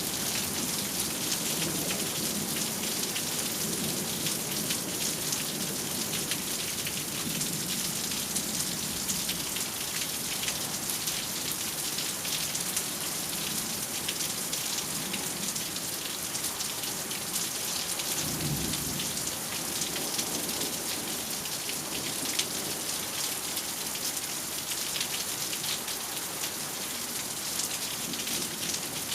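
Steady heavy rain with low rolling thunder rumbling beneath it, and a short, stronger rumble of thunder about two-thirds of the way through.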